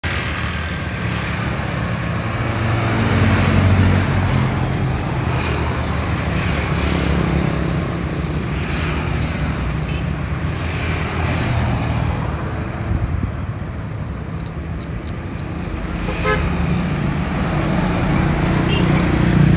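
Street traffic: motorbikes and cars passing on the road, their engine and tyre noise swelling and fading, quietest about two thirds of the way through and building again near the end.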